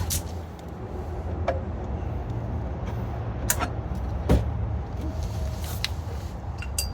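A few sharp metallic clicks and knocks from hand tools being handled, the loudest about four seconds in, over a steady low rumble.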